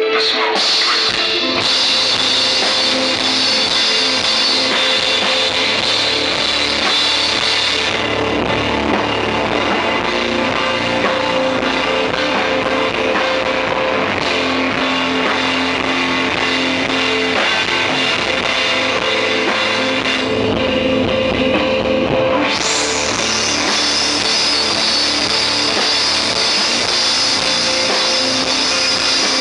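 A live rock band playing an instrumental passage on electric guitar, bass guitar and drum kit. The bright top of the sound thins out about eight seconds in and comes back strongly about three quarters of the way through.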